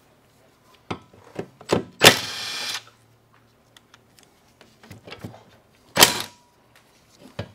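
Impact wrench on a 13 mm socket running in two bursts, a longer one about two seconds in and a short one about six seconds in, spinning out underbody plate bolts, with small metallic clicks of the socket and bolts in between.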